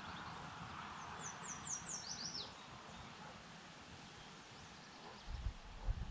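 A small bird singing a short run of about seven quick, high, down-slurred notes that step lower in pitch, over a faint outdoor hiss. Low rumbling sets in near the end.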